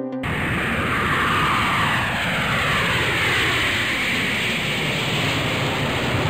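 Four-engined jet airliner flying past on its climb-out: a loud rush of jet engine noise with whining tones that slide down in pitch as it goes by. It cuts in and cuts off abruptly.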